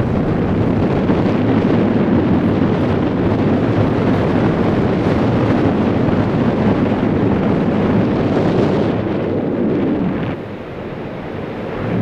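Wind buffeting the microphone on an open beach, a steady rumbling roar with ocean surf beneath it, easing for a moment about ten seconds in.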